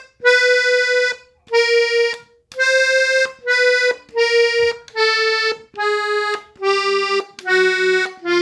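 Three-row diatonic button accordion played slowly, one note at a time: about nine separate held notes, each under a second with short gaps between, stepping gradually downward in pitch, with a lower note sounding beneath the last few.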